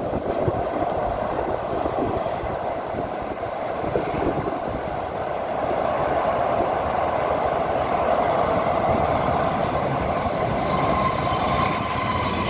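KA Gajayana passenger train, hauled by a CC 206 diesel-electric locomotive, approaching off a railway bridge and passing close by: a steady rumble of engine and wheels on rail that grows louder as the locomotive nears. A faint whine comes in near the end.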